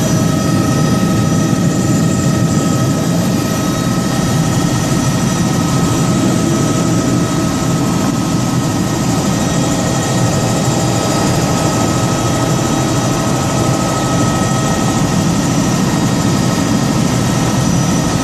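Helicopter turbine and rotor running steadily, with a constant whine over a dense low rumble.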